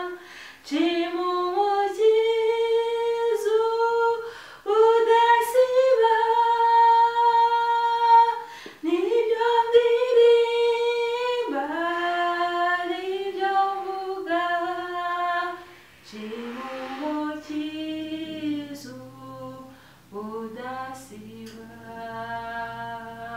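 A woman singing a hymn unaccompanied in Kinyarwanda, in long held notes, with short breaks between phrases.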